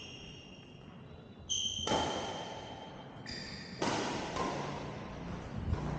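Badminton rally sounds on an indoor court: high squeaks from shoes on the court floor, and two sharp racket-on-shuttlecock hits about two seconds apart, each echoing through the hall.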